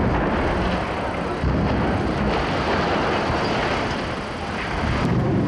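Steady rumble of a concrete cement-factory silo collapsing after explosive charges blew out its base, with debris crashing. It grows louder near the end, with a sharp crash as the tower hits the ground.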